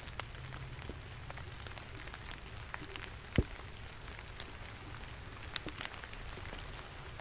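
Steady rain falling in woodland, with scattered drops tapping nearby and one sharp tap about three and a half seconds in.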